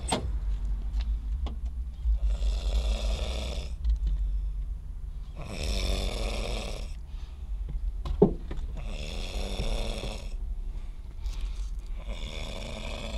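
A man snoring heavily in a drunken stupor: four long snores, about one every three and a half seconds, with a single sharp click about eight seconds in.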